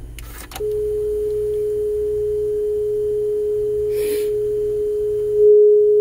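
A steady single-pitch 440 Hz test tone played back from a test tape on a Yamaha KX-650 cassette deck to check its tape speed, starting about half a second in right after a click. There is a short rustle about four seconds in, and the tone gets louder near the end.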